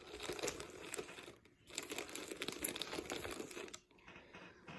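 Plastic candy packaging crinkling as it is handled and moved around in an Easter basket, in two stretches with a short pause between them, falling quieter near the end.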